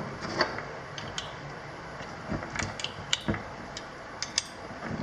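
Ratchet wrench clicking in short, uneven strokes, with light metallic taps, as a nut is run down onto a shaft.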